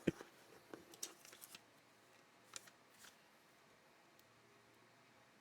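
Camera packaging and paper inserts handled: a few light rustles and taps in the first three seconds, then near silence.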